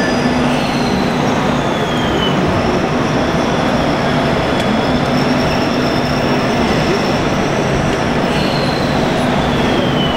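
Steady loud din of a busy hall, with the high whine of small RC model tractor drive motors sliding slowly down in pitch and returning.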